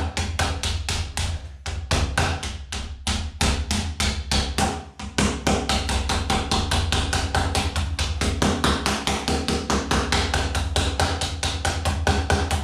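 Rubber mallet tapping rapidly, about five blows a second with brief pauses, knocking a plastic wheel rim protector ring down onto the edge of an alloy wheel rim.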